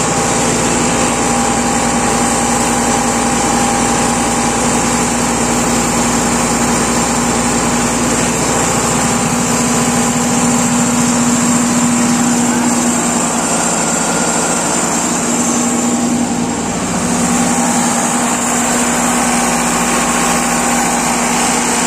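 Sonalika tractor's diesel engine running at a steady speed, with a steady high whine over it. The engine note sags briefly about sixteen seconds in and then picks back up.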